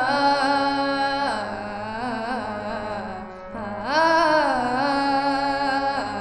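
A young girl singing a Bengali song to her own harmonium accompaniment. Twice, about four seconds apart, a long note slides up and is held with a wavering pitch, over a steady harmonium drone.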